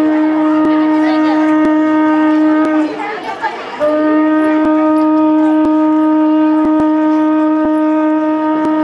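Conch shell (shankha) blown in two long, steady notes of one pitch, with a short break for breath about three seconds in.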